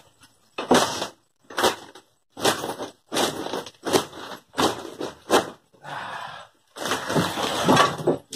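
A wooden subfloor sheet being pried up off floor joists, nailed down: a run of short cracks, creaks and scrapes as the nails pull out of the wood, with a longer scrape near the end.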